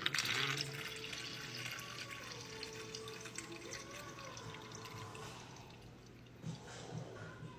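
Liquid running and splashing, loudest in the first second, then trickling on more softly with small drips.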